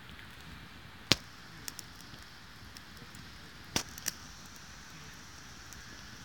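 Wood campfire burning with a steady hiss, broken by sharp crackling pops from the burning sticks: a loud pop about a second in, a couple of small ones soon after, and two more pops near the four-second mark.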